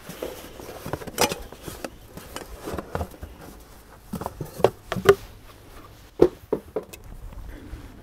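Handling noise from unboxing: a cardboard box rustling while a metal smoke-tester can with a coiled rubber hose is lifted out, with scattered light knocks and bumps.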